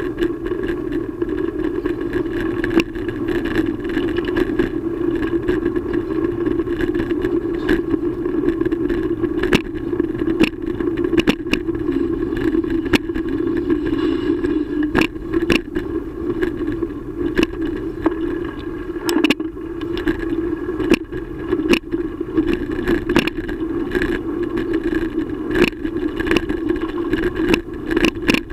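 Riding noise picked up by a camera mounted on a moving bicycle: a steady muffled hum of wind and tyres, broken by frequent sharp knocks and rattles as the bike rolls over bumps and paving joints.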